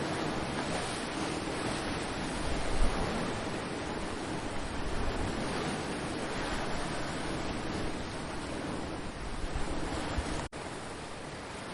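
Ocean surf washing steadily onto the shore, with low gusts of wind buffeting the microphone, strongest about three seconds in. The sound drops out for an instant near the end.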